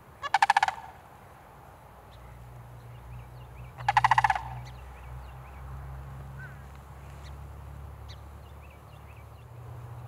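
Sandhill crane giving two short, loud rolling rattle calls, one just after the start and another about three and a half seconds later. Faint chirps of small birds and a low steady rumble sit underneath.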